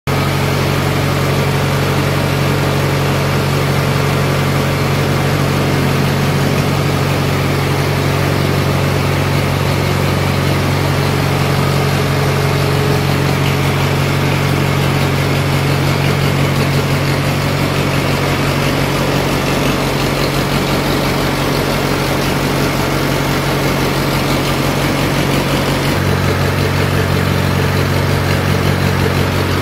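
35 hp diesel engine driving a floating-feed pellet extruder, running steadily with a constant low drone; the tone shifts slightly about 26 seconds in.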